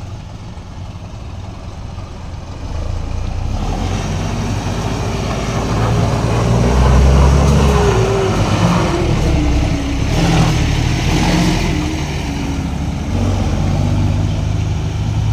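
Heavy Isuzu tractor truck's diesel engine working under load as it hauls a low-bed trailer carrying a sand-dredging boat past at low speed. The deep engine rumble grows louder about three seconds in, peaks near the middle, and stays loud as the rig goes by.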